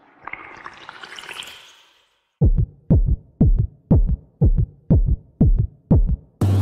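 Intro music sting: a rising swell for about two seconds, a brief silence, then eight deep drum-machine kick beats about two a second, with sustained electronic music starting near the end.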